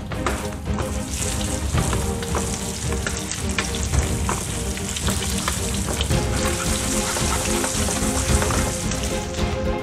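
Lamb shoulder chops frying in butter in a skillet, a steady sizzle that swells about a second in as the foaming butter is spooned over the meat.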